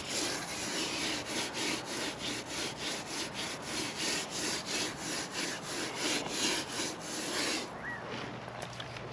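Sponge scrubbed back and forth over fresh mortar on a stone fountain base, a gritty rubbing at about three strokes a second that stops near the end. The mortar is being sponged smooth for its finish.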